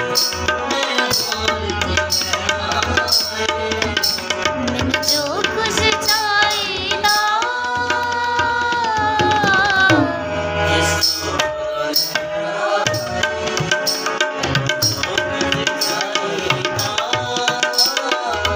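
A man sings a Punjabi hymn to his own harmonium accompaniment, with a hand drum keeping a steady beat. About halfway through he holds one long note for two to three seconds.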